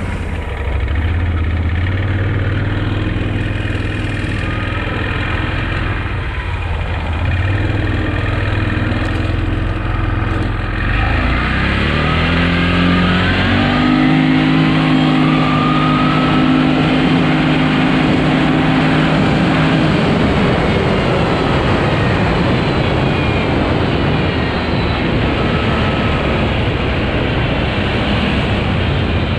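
Arctic Cat 1000cc engine on a test run after a drive belt replacement: it runs low at first, climbs in revs about twelve seconds in and holds a higher steady note, then keeps running at speed with a rougher, noisier sound.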